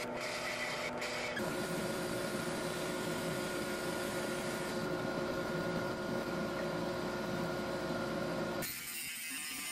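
A drill press motor running for about the first second and a half, then a bandsaw running and cutting through a block of blue-dyed curly maple handle wood, a steady machine tone with a rasping cut. The saw sound stops abruptly about a second before the end.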